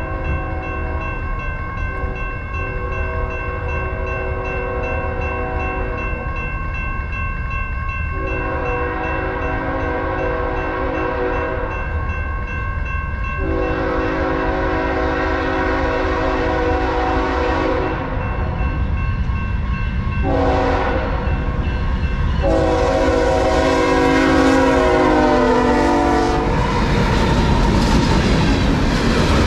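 Diesel freight locomotive horn sounding a series of long blasts with one short blast near the end, over the steady ringing of a grade-crossing warning bell. The last blast drops in pitch as the locomotive reaches the crossing, and then the locomotive's engine and wheels rumble past.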